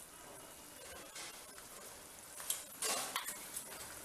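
Tamarind gravy simmering in a stainless steel kadai, a faint steady bubbling hiss. A few light clinks of a metal spoon come through it, the loudest about three seconds in.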